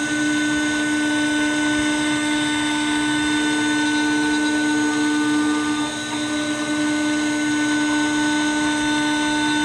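CNC router spindle running with a steady, even whine while a thin fret-slotting bit cuts fret slots into a fretboard. The level dips briefly about six seconds in.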